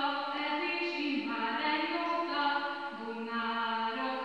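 Young girls singing a song unaccompanied, in long held notes.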